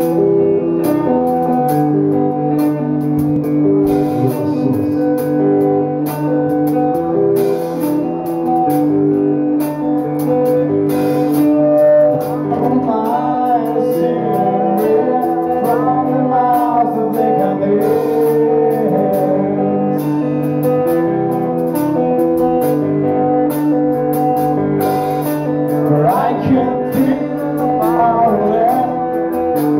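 Live rock band playing a slow song: an electric guitar picks a repeating figure of held notes, and a male singer comes in on the microphone about twelve seconds in.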